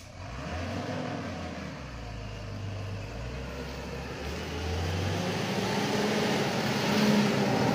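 Loaded Hino truck's diesel engine labouring on a rough track, with a steady low hum. Its note shifts about five seconds in and grows louder toward the end.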